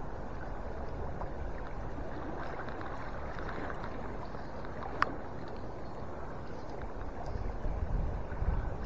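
A small stream's shallow riffles running steadily. There is one sharp click about five seconds in, and a low rumble swells near the end.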